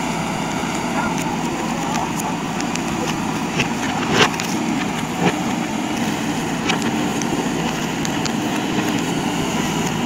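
JCB 3DX backhoe loader's diesel engine running steadily as the backhoe bucket works through a pile of bamboo and brush. A few sharp cracks of breaking stems and branches come between about three and a half and five and a half seconds in, the loudest about four seconds in.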